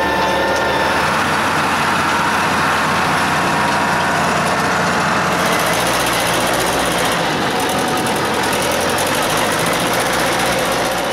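Heavy diesel farm machinery running steadily. From about halfway through, a Hanomag wheel loader's diesel engine idles with a low, knocking rumble.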